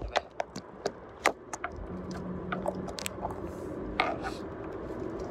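Handling noise from a phone camera being moved and repositioned: scattered small clicks and taps, with a brief low hum about two seconds in.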